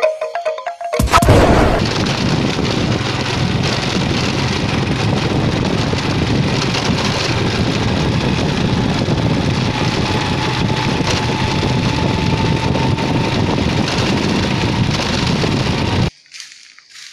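Intro music that opens with a loud boom about a second in and then runs as a dense, steady bed before stopping abruptly near the end.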